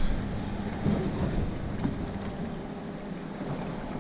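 Wind buffeting the microphone aboard a drifting fishing boat at sea, over a faint steady hum, with a few soft knocks in the first two seconds.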